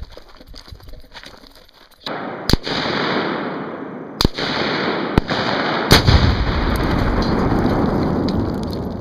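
Three sharp rifle shots at about two-second intervals, then a heavy explosion with a deep boom about six seconds in as 2 lb of Tannerite packed in a CRT computer monitor detonates. The boom rumbles away slowly over a steady rushing noise.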